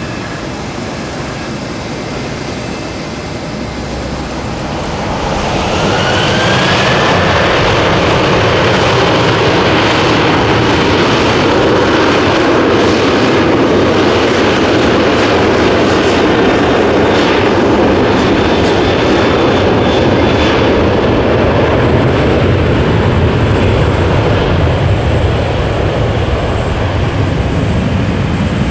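Twin jet engines of a Japan Airlines Boeing 737 spool up with a brief rising whine about five seconds in, then run loud and steady at high thrust as the airliner rolls along the runway, easing slightly near the end.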